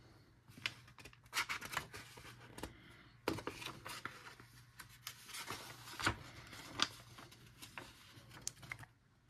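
Coloring-book pages rustling and flipping as fur-covered paws turn a page and smooth it down, in irregular paper rustles and sharp taps, loudest about three seconds in and again around six to seven seconds. A faint steady low hum sits underneath.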